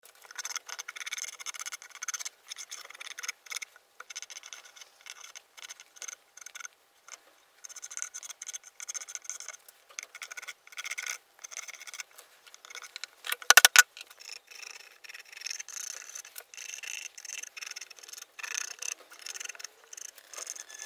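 A lump of charcoal rubbed and scratched across rough wooden planks in short, irregular strokes. A brief, loud clinking rattle sounds about two-thirds of the way through.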